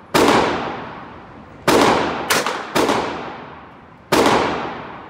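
Five gunshots from a handgun at irregular intervals: one right away, three in quick succession between about one and a half and three seconds in, and one more near the end. Each shot is followed by a long echoing decay from the indoor range.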